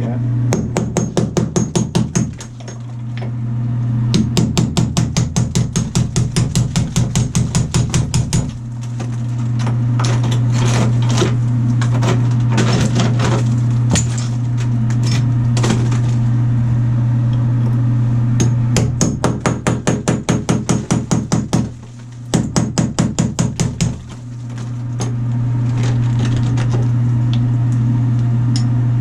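Electric chipping hammer running steadily, chiselling tile and mortar off a shower wall in several bursts of rapid hammer blows, its motor humming on between the bursts.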